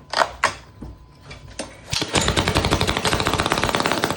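Small gasoline engine on a pressure washer being pull-started: two short pulls, then about two seconds in it catches and runs loudly with a rapid, even popping. It is running on a cracked rocker arm that has just been readjusted to get it to fire.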